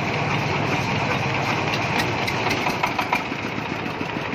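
Engine-driven corn sheller machine running steadily on a test run, with scattered sharp clicks and rattles joining in from about halfway through.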